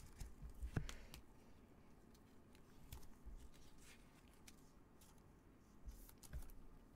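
Near silence with a few faint rustles and small clicks: trading cards and a clear plastic card holder being handled with nitrile-gloved hands.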